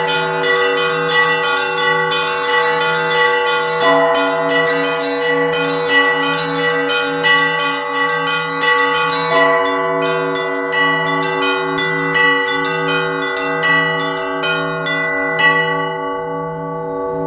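Russian Orthodox church bells (zvon) played by one bell ringer. A low bell is struck steadily about every two-thirds of a second under quick, dense strikes of smaller, higher bells, which thin out near the end.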